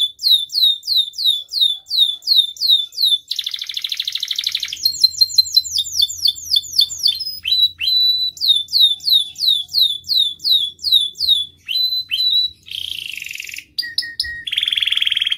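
Domestic canary singing a long, varied song: fast series of falling whistled notes, about five a second, broken by buzzy rattling trills about three and a half seconds in and again near the end.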